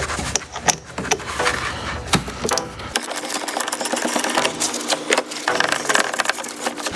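Rapid metallic clicking of a 10mm ratcheting wrench in quick runs, loosening a corroded battery cable nut.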